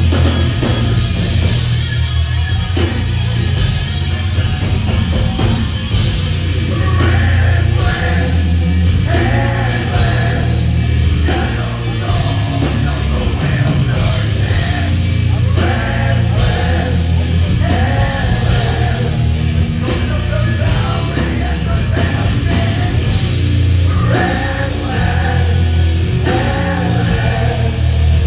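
Heavy metal band playing live, loud: distorted electric guitar, bass and drums, with the singer's vocals coming in over them several seconds in.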